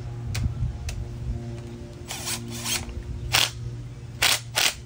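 Cordless power driver run in several short trigger bursts, spinning the center nut onto an AC compressor clutch hub; the strongest bursts come in the last second and a half.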